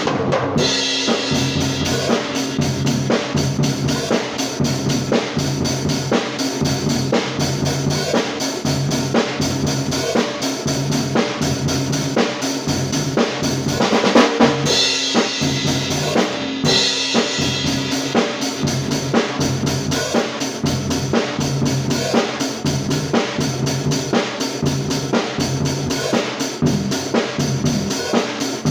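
Isolated drum-kit track of a pop-rock song: a steady beat on kick and snare. A cymbal crash comes just after the start, and there is another louder stretch of crashes a little past halfway.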